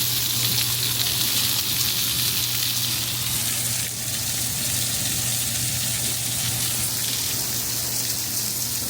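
Sliced mild Italian sausage sizzling as it pan-fries in a pan coated with non-stick spray: a steady frying hiss. A low steady hum runs underneath.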